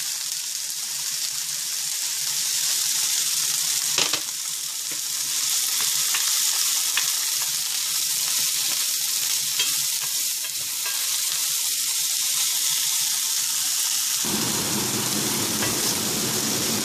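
Fiddleheads and chopped garlic sizzling steadily in hot oil in a cast iron pan, stirred with a wooden spoon, with one sharp knock about four seconds in.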